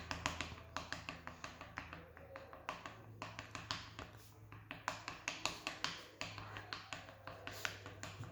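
A stirring utensil clicking and tapping against the side of a container while watery slime mixture is beaten to break up lumps, in quick uneven taps about four a second with brief pauses.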